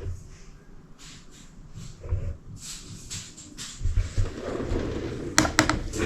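Light handling noises: soft rustling with a couple of low thumps, then a quick run of sharp clicks near the end.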